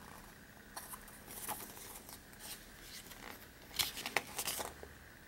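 Thin paper booklet being flipped through by hand: faint, irregular rustles and crackles of pages, the loudest near the end.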